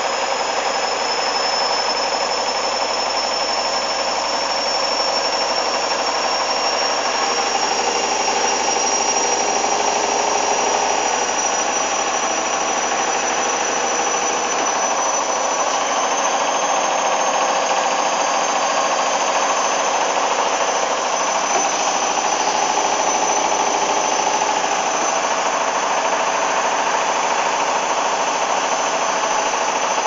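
Hoover Dynamic front-loading washing machine on its final spin at 1400 rpm, very unbalanced: a steady loud rush of the spinning drum with a high motor whine that slowly climbs in pitch.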